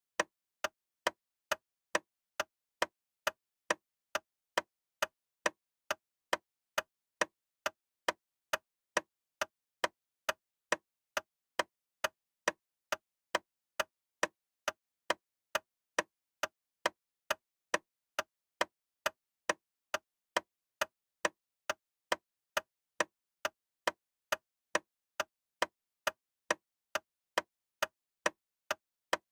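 Loud, sharp ticks repeating at an even pace, a little under two a second, with dead silence between them.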